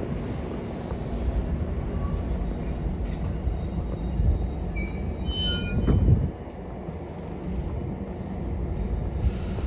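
Metra commuter train running on the rails with a steady low rumble. Several brief high squeals come from the wheels or brakes around the middle, then a thump, after which the rumble quietens.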